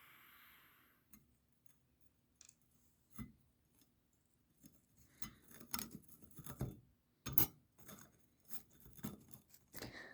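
Steel transmission internals clicking and knocking against each other as they are handled, a few scattered clicks at first, then a busier run of clinks and knocks in the second half, with one louder knock.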